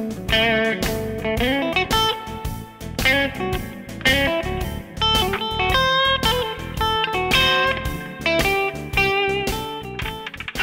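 Background music: a blues shuffle in A played on electric guitar, with notes bent up and down.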